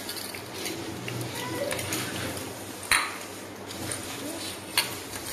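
Steel bowl clinking: a sharp metallic knock about three seconds in, the loudest sound, and a smaller one near the end.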